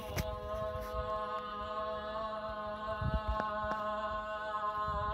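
Japanese Buddhist mendicant (takuhatsu) monk's call: one long drawn-out 'ooo' note, held steady with a slight waver.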